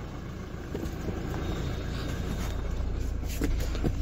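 Rustling and a few soft clicks of someone moving past a folded second-row seat into an SUV's third row, over a steady low cabin hum.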